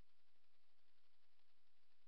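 Faint, steady splashing hiss of a small fountain, its water spray falling from the 3D-printed fountain head into the birdbath basin.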